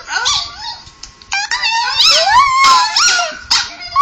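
Chihuahua whining and howling 'talking' vocalisations, a string of calls that slide up and down in pitch. They play from a laptop speaker. There is a brief lull about a second in, then a longer run of wavering calls.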